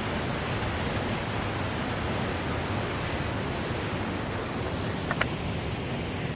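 Steady rushing of a waterfall and rapids close by, an even wash of water noise. Two short clicks about five seconds in.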